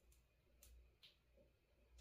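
Near silence: room tone with a low hum and three faint, short clicks, like small tools or wires being handled.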